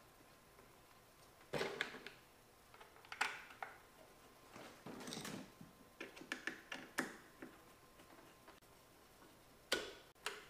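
Irregular light clicks, knocks and short rattles of hoses, clamps and fittings being handled by hand in a car's engine bay, a few at a time every second or two.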